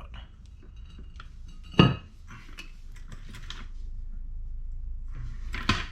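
Metal parts and tools clinking and clattering as front-end suspension pieces are handled, with a sharp metal clank about two seconds in and another near the end.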